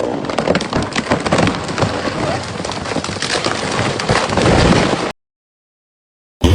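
Wood cracking, splitting and snapping in a dense run of sharp cracks as a felled tree gives way and comes down. This lasts about five seconds, then cuts off abruptly to silence.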